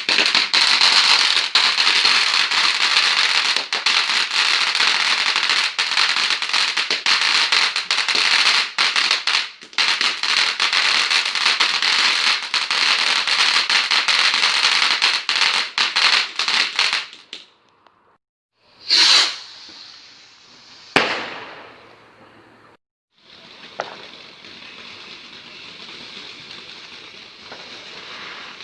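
Fireworks: about seventeen seconds of dense crackling and fizzing that cuts off suddenly, then a short burst about nineteen seconds in and a single sharp bang about two seconds later, followed by a faint steady hiss.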